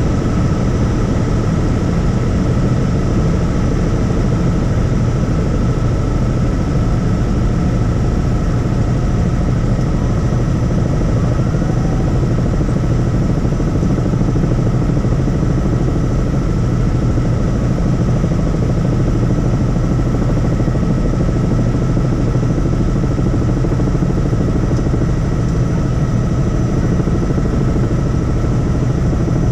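Helicopter engine and rotor running steadily in flight, a heavy low drone with a thin steady whine above it.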